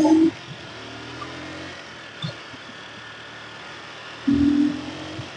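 Small Honda street motorcycle's engine running at a steady cruise, with road noise. A brief, loud pitched tone sounds at the start, and another, about half a second long, comes about four seconds in.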